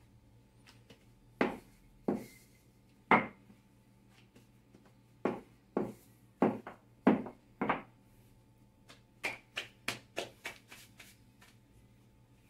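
Wooden rolling pin rolling out flour tortilla dough on a countertop: a series of short strokes and knocks, then a quicker run of lighter taps about nine seconds in.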